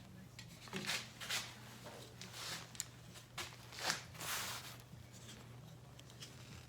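A series of short rustling and scraping handling noises, hands working with small parts and tools, loudest in the first two thirds, over a steady low hum.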